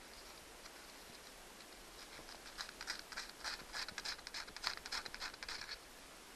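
Quick, faint scratchy scrubbing strokes on the wire terminals of a Johnson 90 hp outboard, as oily, green-corroded contacts are polished clean. The scrubbing begins about two seconds in and stops shortly before the end.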